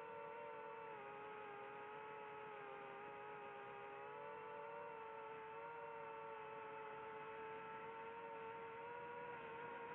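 FPV quadcopter's motors and propellers whining steadily in flight, the pitch dipping slightly about a second in and creeping back up near the end.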